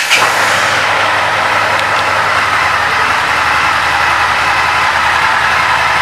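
2019 Indian FTR 1200's liquid-cooled V-twin idling steadily, just after being started. A brief flare in the first moment settles into an even idle.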